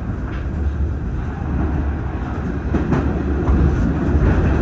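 Subway train of 1989 Kawasaki R68A cars running along the track, heard from inside a car: a steady low rumble of wheels on rail with a few clicks over rail joints, growing louder about three seconds in.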